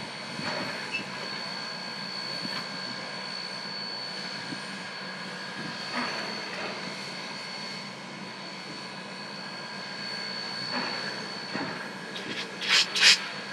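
D&RGW K-37 steam locomotive 493 standing at rest, giving off a steady hiss with a high, even whine. A few short, sharp bangs or pops come near the end.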